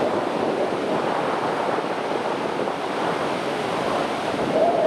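Steady roar of a large waterfall's rushing water, mixed with strong wind buffeting an unshielded camera microphone.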